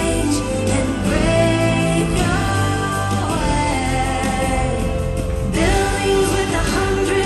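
Show soundtrack music with singing over it, a sung melody holding long notes over instrumental backing.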